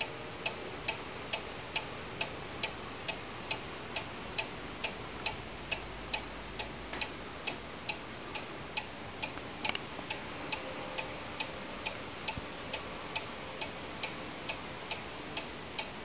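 Mechanical chalet-style cuckoo clock's pendulum movement ticking steadily, a little over two ticks a second: the clock is running.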